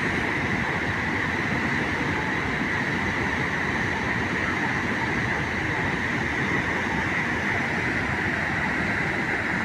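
Water crashing and rushing at a large dam, a steady, unbroken wash of noise with no let-up.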